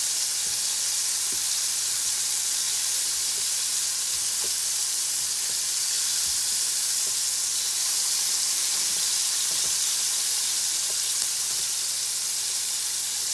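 Battered squid pieces shallow-frying in hot oil in a large skillet: a steady sizzle, with a few faint clicks of forks turning the pieces against the pan.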